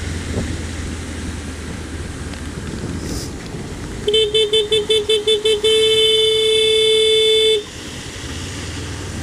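Vehicle horn sounded in about eight quick toots, then held in one long blast of about two seconds, a single steady tone. Beneath it, a steady low engine hum and road and wind noise.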